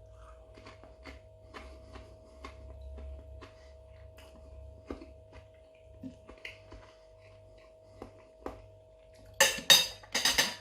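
Faint clinks of cutlery on a plate over a steady low hum and a faint whir, then a much louder burst of noise about nine and a half seconds in.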